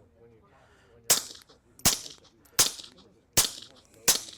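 Five suppressed .22 shots from a Ruger Mark fitted with a Shadow Silencers Duo Mini suppressor, fired at an even pace about three-quarters of a second apart. Each is a sharp crack with a brief tail.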